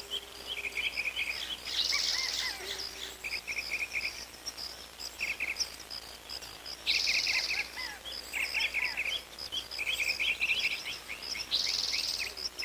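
Birds chirping in quick repeated runs of short notes over a steady high insect trill, with a harsh buzzing call breaking in three times, about every five seconds.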